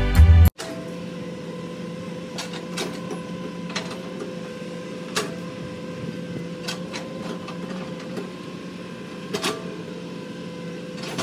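Hydraulic excavator running as it digs: a steady engine hum with a constant tone above it, and scattered sharp knocks and clanks from the working arm and bucket.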